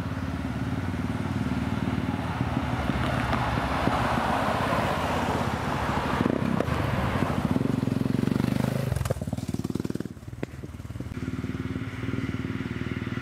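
A car and a motorcycle driving past over a level crossing, engines and tyre noise, the sound falling away sharply about nine to ten seconds in as they go by.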